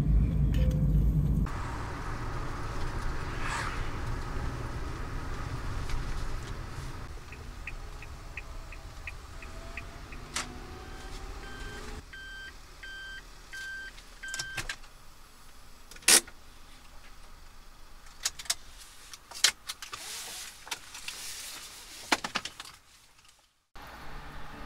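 Car sounds from a kei van. A low engine rumble at first gives way to quieter stretches with a run of even ticks, a few short evenly spaced beeps, and several sharp knocks, the loudest about two-thirds of the way in.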